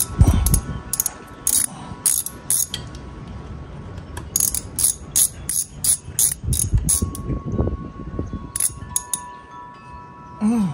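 Ratchet-like clicking in short runs, with a few low handling knocks, as the drain and vent screws are worked loose on an outboard motor's lower unit for a gear oil change. The clicks come singly at first and in a quick run from about four to seven seconds in.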